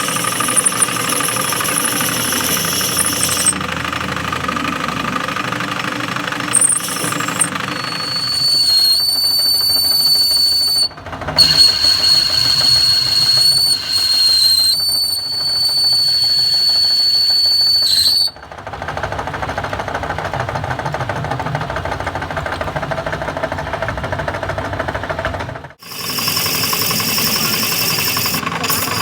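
Workshop machinery running while metal is ground, in several abruptly cut stretches; for about ten seconds in the middle a high steady whine rides over the noise.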